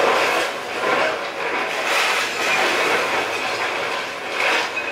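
Komatsu excavator demolishing a house: a continuous clatter and crunching of breaking wood and debris, with a level that rises and falls.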